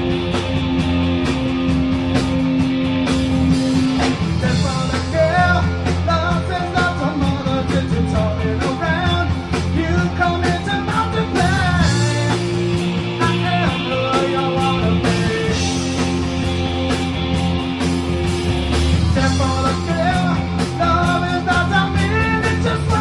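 A rock band playing live, with guitar, bass and drums. A voice sings over the band from about four seconds in.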